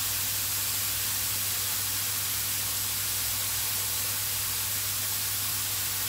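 Shimeji mushrooms and sweet soy sauce sizzling in hot oil in a nonstick pan: a steady, even hiss with a low hum underneath.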